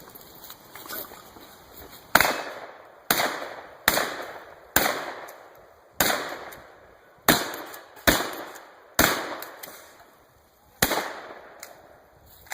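Winchester 1300 pump-action shotgun fired nine times in quick succession, about one shot a second, each shot echoing off and with a slightly longer pause before the last.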